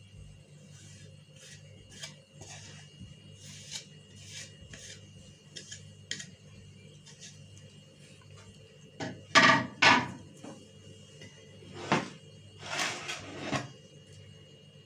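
Kitchen dishes and utensils being handled: light clicks and rustles, then a few loud clatters in the second half, over a faint steady hum.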